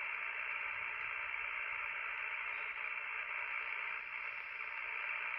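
Steady static hiss from a Yaesu FT-One HF transceiver's receiver, tuned on the 17-metre band with no station coming through, only band noise.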